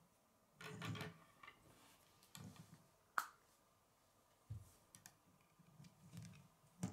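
K'nex plastic rods and connectors clicking and clattering as they are handled and snapped together, with a short run of clicks about a second in and one sharp snap about three seconds in. A soft low knock falls in the middle as plastic meets the wooden tabletop.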